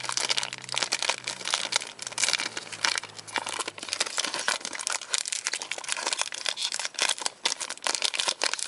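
Foil Pokémon booster pack wrapper crinkling and tearing as it is opened and handled, a dense continuous crackle.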